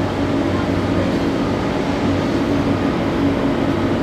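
Diesel engines of Caterpillar 330D L excavators running steadily under hydraulic load while one digs with its bucket: a constant low engine drone with no hammer blows.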